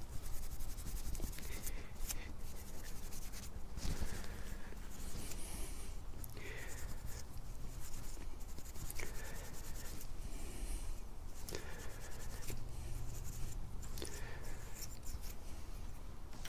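Hands rubbing and scraping the small metal parts of a motorcycle fuel tap (petcock) as it is taken apart and cleaned, with scattered light clicks.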